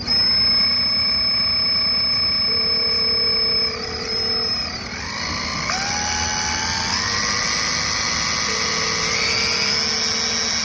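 Small electric motor whining steadily, then speeding up in several steps so that its pitch climbs repeatedly.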